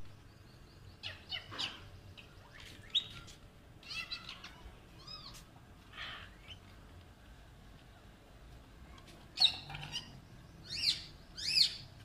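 Alexandrine parakeets giving short calls at irregular intervals, with the loudest calls coming in a quick run near the end.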